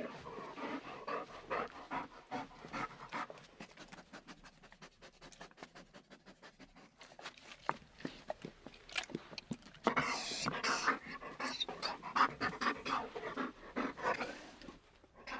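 A dog panting, a quick run of short breaths that grows louder about two-thirds of the way in.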